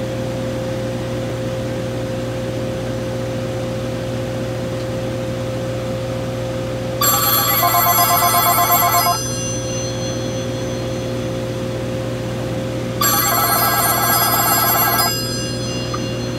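Panasonic KX-TGF570 cordless phone set ringing with an incoming call: two rings, each about two seconds of fast warbling electronic tones, roughly four seconds apart, over a steady background hum.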